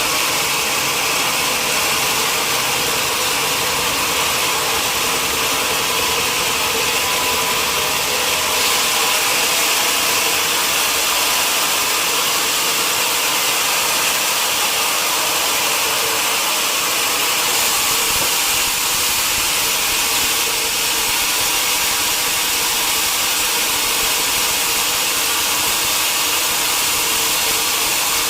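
Sawmill machinery running steadily, a constant hissing machine noise with a faint steady hum underneath.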